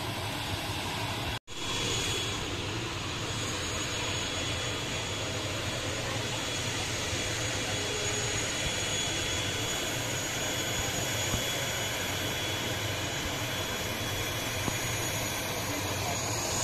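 Aircraft engines running steadily on the apron, a constant rushing hum with a thin high whine over it. The sound drops out for an instant about a second and a half in.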